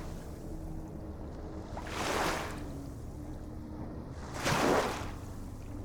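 Small ocean waves splashing and washing in about every two and a half seconds over a steady low rumble of surf.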